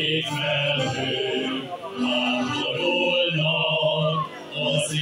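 Men's choir singing, holding long notes, with a short break between phrases near the end.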